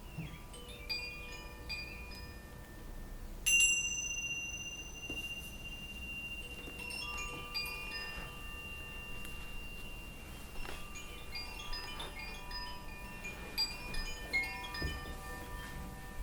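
Chimes ringing in scattered, overlapping metallic tones for a sound-healing session, with one louder strike about three and a half seconds in that rings on for several seconds.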